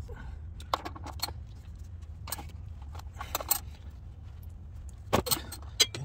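Ratchet and socket clinking and clicking on the oil pan drain plug as it is worked loose: scattered sharp metallic clicks in small clusters.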